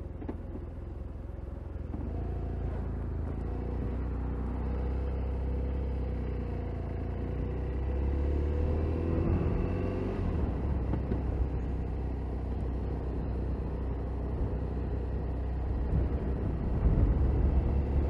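Motorcycle engine under way, pulling away and accelerating, its pitch rising a couple of seconds in and again about halfway through, over a steady low wind rumble on the microphone.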